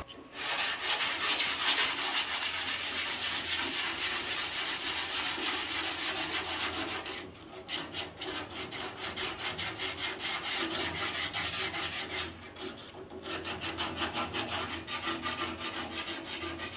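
Hard straight sanding block with 120-grit paper rubbed in quick, steady back-and-forth strokes over a steel body panel during rough body work. It pauses briefly twice.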